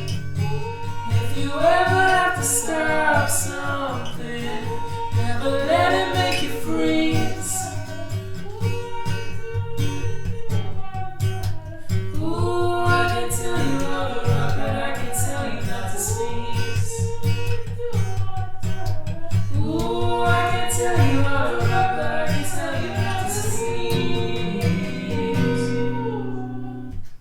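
A song: a sung melody in phrases a few seconds apart, over plucked guitar and a steady low bass. The music stops right at the end.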